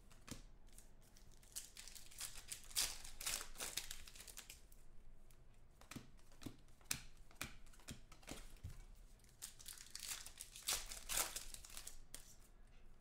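Trading cards and foil card-pack wrappers being handled: a string of short, irregular crinkles and rustles.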